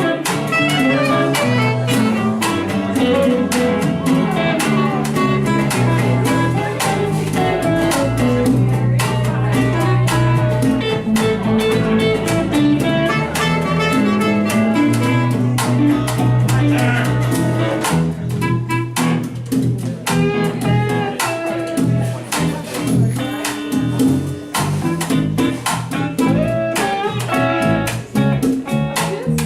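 Band music with guitar and a bass line, playing steadily throughout.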